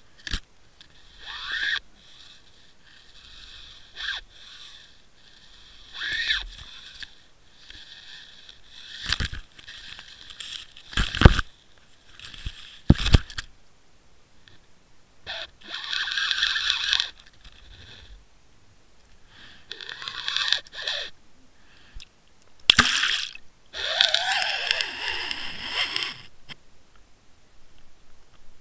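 Water and line noise picked up inside a Water Wolf underwater camera housing as it is drawn through the water on a fishing line: irregular rushing and scraping swells, with three sharp knocks a couple of seconds apart near the middle.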